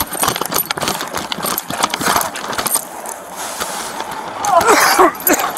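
Dense rustling and clicking from a body-worn camera rubbing against a dog's fur, with metallic jingling, then a few short cries near the end.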